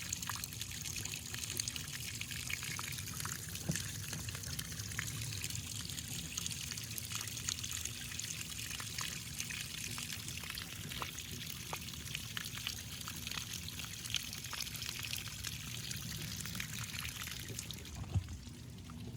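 Water pouring and trickling steadily, pushed through a pond waterfall by a newly installed pump that is flushing out old stagnant water.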